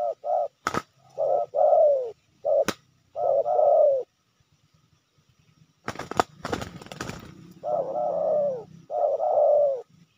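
Spotted doves cooing over and over, in phrases of short notes and longer, falling coos. About six seconds in comes a burst of wing flapping as two doves fight, and there are two sharp clicks in the first three seconds.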